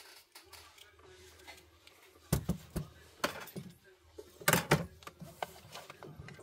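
Small hard clicks and taps of tools and small parts on a smartphone being reassembled, with two louder clusters of knocks about two and a half and four and a half seconds in.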